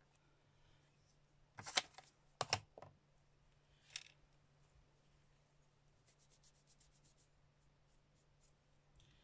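A clear acrylic stamping block being lifted off the card and handled, giving a few light knocks and clicks against the desk, then faint quick ticks about six seconds in.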